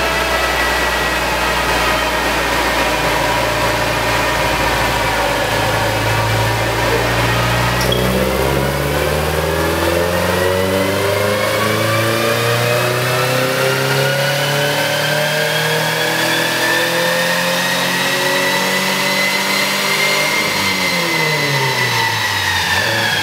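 A 2005 Subaru Impreza 2.5 RS's naturally aspirated flat-four running through a loud aftermarket catback exhaust. The note holds fairly steady at first, then climbs smoothly in pitch for about twelve seconds as the engine pulls up through the revs, and drops back near the end.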